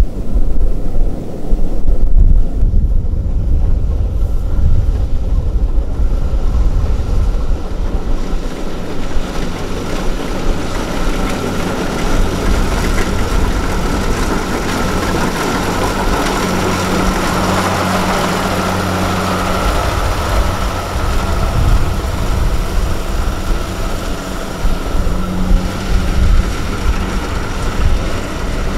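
A farm machine's engine runs steadily at a constant pitch, with heavy low rumble, likely wind on the microphone.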